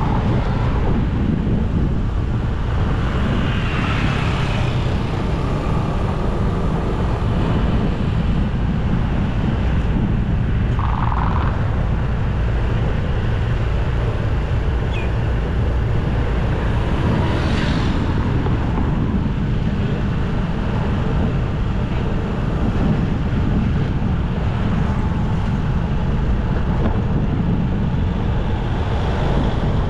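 Steady wind rushing over the microphone of a moving bike, over a constant bed of road and traffic noise.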